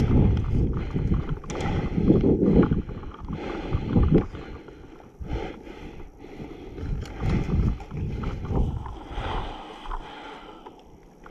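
Wind and movement noise rumbling on an action camera's microphone, surging and fading irregularly, with rustle from a player moving.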